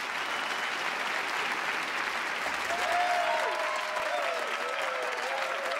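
Audience applauding: a dense, steady patter of many hands clapping, with voices cheering and calling out over it from about halfway through.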